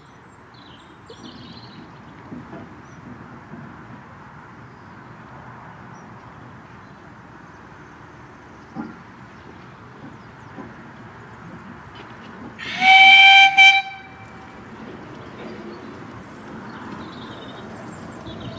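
An Exmoor-built 0-4-2T miniature steam locomotive approaching with its passenger train, its running sound slowly growing louder. About two-thirds of the way in it sounds its steam whistle in one loud blast of about a second, briefly broken near its end.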